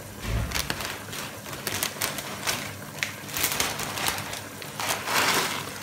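Broth boiling in a pan under a mass of dry flour noodles, giving irregular crackles and pops, with a low thump about a third of a second in.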